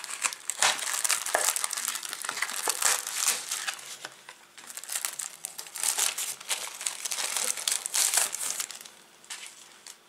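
Clear plastic wrapper crinkling and crackling as it is torn open and peeled off a pack of picture cards by hand, in two busy spells with a short lull about four seconds in, dying down near the end.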